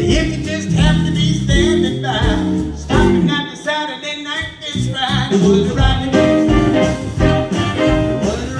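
Live jump-blues band playing: piano, electric guitars, bass, drums and a horn section of saxophone, trumpet and trombone over a swinging beat. The bass and drums drop out for about a second in the middle before the groove comes back in.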